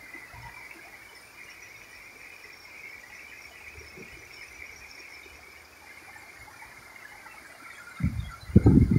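Steady, high-pitched chirring of insects over the faint rush of a shallow, stony river. About eight seconds in, a loud, gusty low rumble breaks in.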